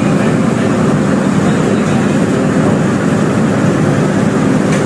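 Steady low hum and rush of a ship's machinery running, with a short knock near the end.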